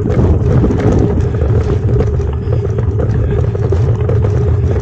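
Wind rumbling on the microphone, with rolling noise from a touring bicycle being ridden: a loud, steady low rumble with a constant hum through it.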